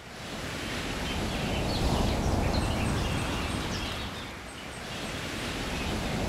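Outdoor ambient noise: a broad rushing sound with some low rumble that swells, eases and swells again, with faint short high chirps scattered through it.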